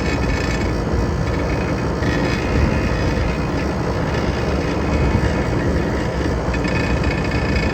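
Goodman rooftop package AC unit running, its old compressor making a loud, steady mechanical noise with heavy vibration. The compressor sounds wrong to the technician, who blames its worn state and strong shaking for the cracked refrigerant line.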